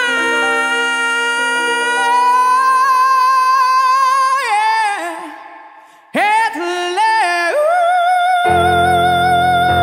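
Female vocalist singing over piano in a slow ballad. She holds one long note with vibrato that fades about four and a half seconds in, then starts a new phrase and holds another long note, with low piano chords coming in near the end.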